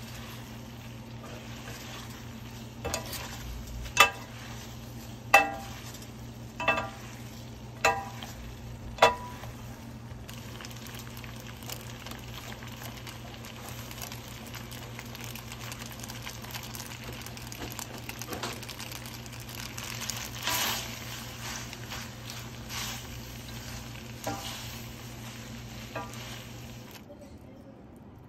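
Spaghetti sizzling in sauce as it is tossed in a stainless steel pan with a wooden spoon and metal tongs. The tongs clink sharply against the pan about six times in the first ten seconds, with softer knocks later. A steady low hum runs underneath and stops shortly before the end.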